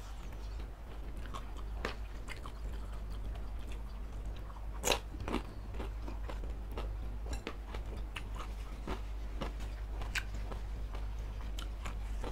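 Close-miked chewing and biting of satay and saucy noodles: wet mouth sounds with scattered short clicks and crunches, the sharpest one about five seconds in.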